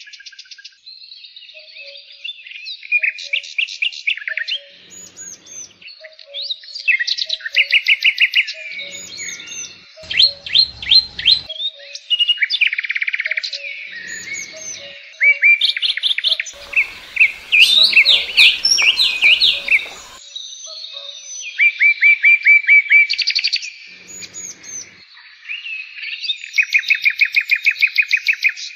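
Songbirds singing close by, with several voices overlapping in rapid trills and runs of repeated chirps. A faint rushing noise sits underneath twice, once around the middle and again a few seconds later.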